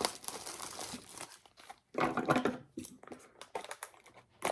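Plastic wrapping of a trading-card pack crinkling and being torn, in several short bursts of rustling.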